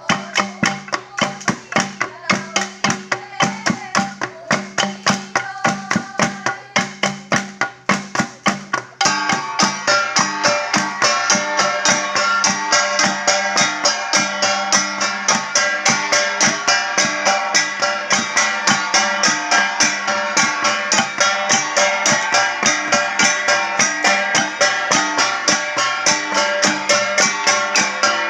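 Traditional Cordillera gong music: a steady, evenly struck beat of about two to three strokes a second, growing fuller and denser about nine seconds in.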